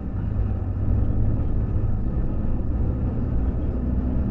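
Steady low rumble of engine and road noise heard inside the cab of a large vehicle as it drives along.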